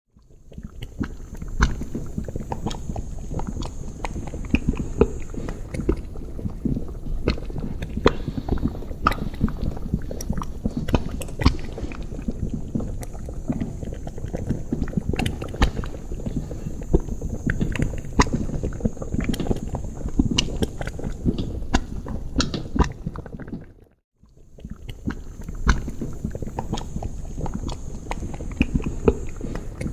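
Thick liquid bubbling and gurgling steadily in a cauldron, with dense low bubbling and frequent sharp pops. It fades in at the start, drops briefly to silence about 24 seconds in, and fades back up.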